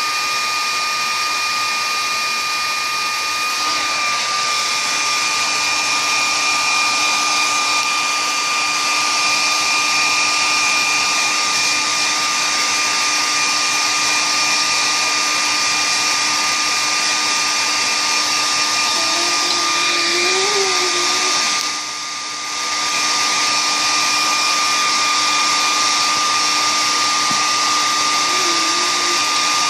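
An electric appliance motor running steadily, a whirring hiss with a constant high whine. It dips briefly for about a second, roughly twenty-two seconds in.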